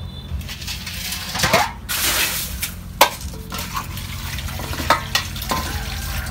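Freshwater snails being washed by hand in a stainless steel basin: water swishing, and the shells clattering and clicking sharply against each other and the metal bowl a few times. Tap water runs over the snails in a woven basket in the second half.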